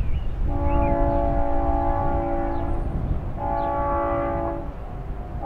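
Air horn of a Union Pacific GE AC44CW locomotive on an approaching train, sounding a several-note chord in two blasts. The first is long, about two seconds, starting half a second in. The second is shorter, about a second. A low rumble runs beneath.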